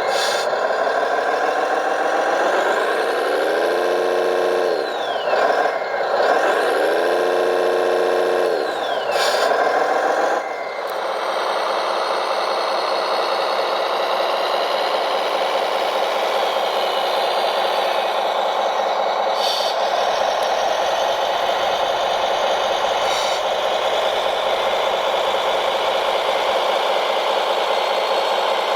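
Radio-controlled model vehicle's motor and drivetrain whining: the pitch rises and falls twice, then holds steady from about ten seconds in.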